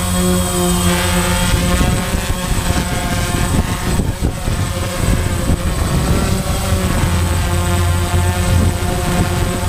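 DJI Phantom quadcopter's electric motors and propellers running in flight, heard close up from the GoPro mounted on the craft. A loud buzzing whine whose pitch wavers as the throttle changes, with a steady thin high tone underneath.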